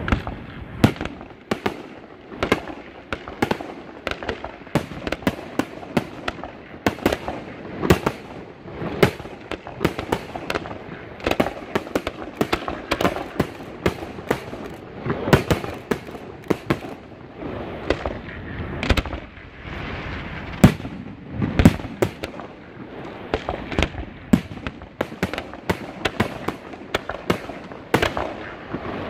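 Fireworks display: aerial shells bursting one after another, many sharp bangs at an irregular pace, several a second at times, over a continuous rumbling haze.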